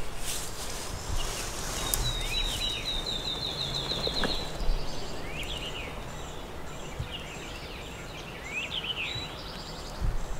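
Songbirds singing in woodland: a rapid trill of quickly repeated high notes about two seconds in, then short chirping phrases, over quiet outdoor background.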